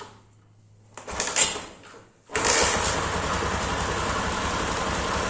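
Single-cylinder engine of a 2003 Honda CG Titan motorcycle starting up after a short burst of noise, then idling steadily. It is running with a bolt out of the top of the engine to check that oil is being pumped up there.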